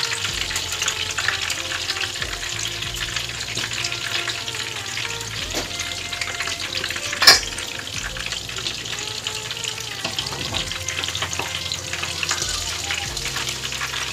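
Bangda (Indian mackerel) frying in hot oil in a pan, sizzling steadily, while a wooden spatula lifts the fried fish out. One sharp knock about halfway through.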